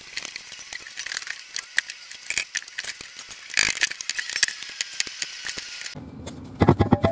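Irregular metallic clinks, taps and scrapes of hand tools working at a log burner's flue joint and collar to break its fire-cement seal, with a few louder knocks near the end.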